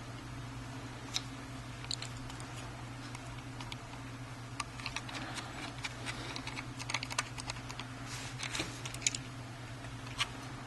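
Light, irregular clicks and taps from handling a MacBook Pro, sparse at first and thicker through the middle, over a steady low hum.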